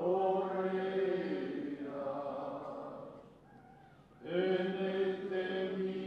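A group of men singing slowly together in unison, holding long notes, with a short break a little past the halfway point before the next phrase.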